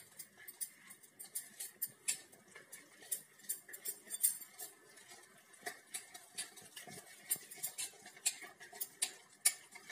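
A spoon stirring thick gram-flour and curd batter in a stainless steel bowl, with quick irregular clinks and scrapes of the spoon against the bowl several times a second.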